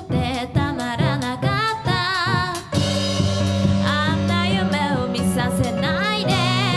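A live band plays a J-pop cover, with a lead vocal sung with wide vibrato over drums, bass and guitar. Sharp drum hits mark the first few seconds, and sustained chords take over from about halfway through.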